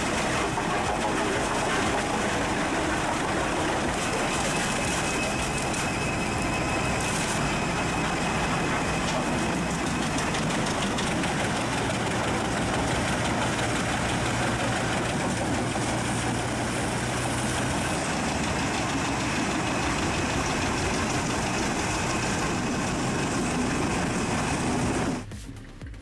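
Heavy machinery engine running steadily, most likely the excavator working the tree, until it cuts off about a second before the end.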